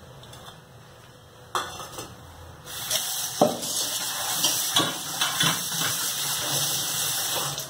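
Tap water running into a steel bowl as bitter gourd pieces are washed, starting about a third of the way in, with a few metallic clinks of the bowl.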